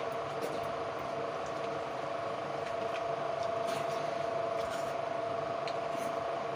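Hand-eating sounds: fingers mixing and scooping rice in steel plates, with soft squishing and a few light clicks against the steel, over a steady electrical-sounding hum.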